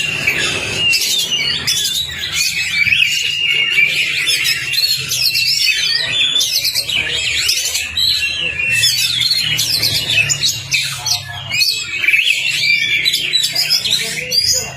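Oriental magpie-robin (kacer) singing fast, dense, unbroken runs of chattering and whistled notes in the 'ngobra' style. A faint low hum runs underneath.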